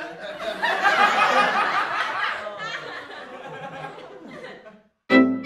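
Audience laughter from a sitcom-style laugh track, swelling about a second in and then fading away. Near the end a fiddle tune starts.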